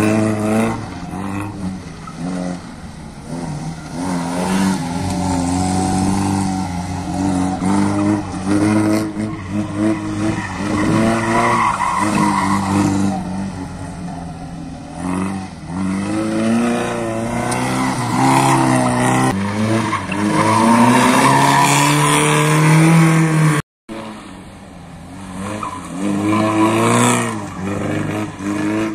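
Competition car's engine revving hard, rising and falling in pitch again and again as it is driven flat out through tight turns, with tyres squealing and skidding on the asphalt. There is a short break about two-thirds of the way through.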